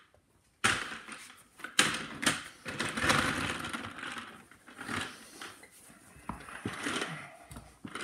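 Handling noise at a workbench: several sharp knocks and clatter with scraping and rustling, starting suddenly a little under a second in and busiest over the next few seconds.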